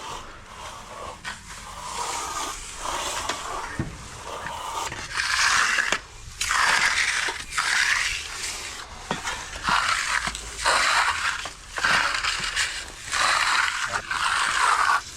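Hand finishing tool, a trowel or float, scraping across freshly poured, setting concrete in repeated back-and-forth strokes, each about half a second to a second long.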